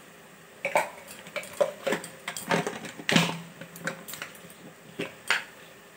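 Irregular light clicks and taps of a small spoon and a plastic spice jar and its lid being handled while spice powder is spooned into a steel kadai. About a dozen taps, the loudest about three seconds in.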